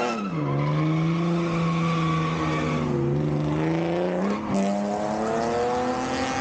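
Drift car's engine held at high revs through a slide, with tyre squeal: a quick blip at the start, steady revs with a brief dip, then a jump and revs climbing toward the end.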